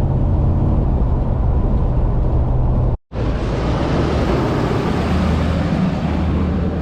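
Engine and road noise inside a car, a steady low rumble. About three seconds in the sound cuts out for a moment, then a similar rumble returns with more road hiss.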